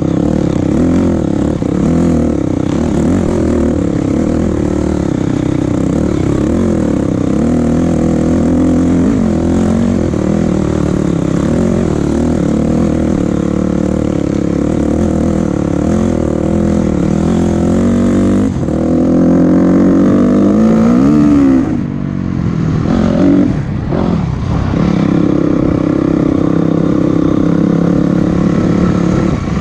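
Vehicle engine running under load with the revs wandering up and down. About two-thirds of the way through it revs up, then drops off and surges briefly a couple of times before settling back to a steady run.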